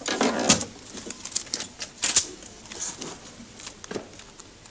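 Banknotes being flicked through and counted by hand: a quick run of crisp paper snaps and rustles, loudest near the start and again about two seconds in.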